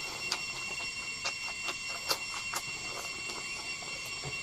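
Close-up chewing of crunchy bamboo shoot: irregular wet crunches and mouth clicks, the sharpest about two seconds in, over a steady high whine in the background.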